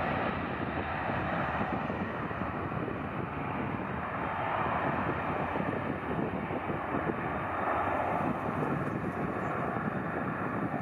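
Jet engine noise from a Boeing 767-300 freighter's twin General Electric CF6-80C2 turbofans at takeoff thrust as the plane accelerates down the runway: a steady rushing noise with slow swells.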